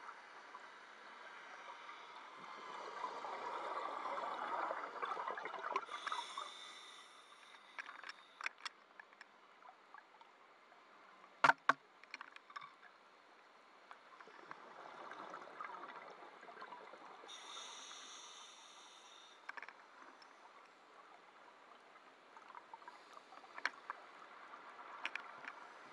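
Scuba diver breathing through a regulator underwater: two slow breath cycles, each a long rush of exhaled bubbles followed by a short hiss of inhaling. A single sharp knock about halfway through, with a few small clicks.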